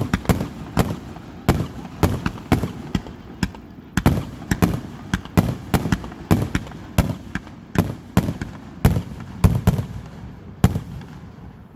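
Fireworks display: shells bursting one after another in quick, irregular succession, sharp bangs roughly two a second, each trailing a short low rumble.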